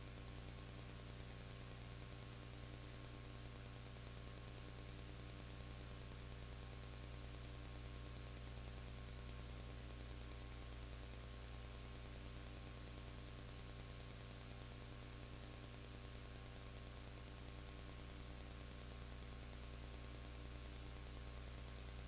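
Steady electrical mains hum with a stack of overtones under an even hiss, unchanging throughout.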